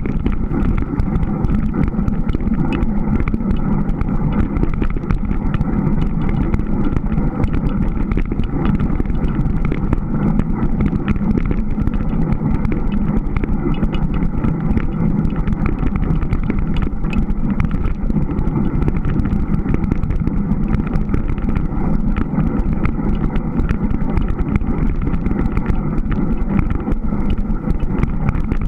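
Steady low rolling noise of a Surly Moonlander fat-bike being ridden over snow, picked up by a camera travelling on the ride.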